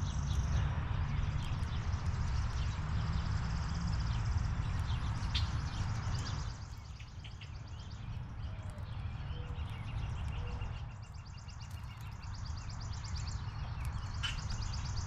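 Songbirds chirping and giving fast high trills, several trill runs of a few seconds each, over a steady low rumble.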